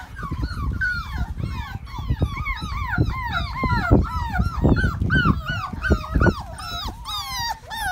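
Several mini Bernedoodle and Sheepadoodle puppies yipping and whining in quick, overlapping short cries that rise and fall, with low thumps from the puppies scuffling on the wooden porch deck.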